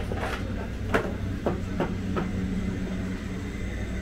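Busy market-street background: a steady low rumble and hum with several sharp knocks in the first half, the loudest about a second in.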